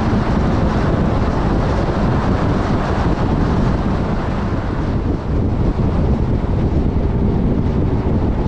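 Wind rushing over the camera microphone of a BMW C 400 GT maxi-scooter at speed, with the scooter's single-cylinder engine and tyre noise underneath. The rush eases a little about five seconds in as the speed drops.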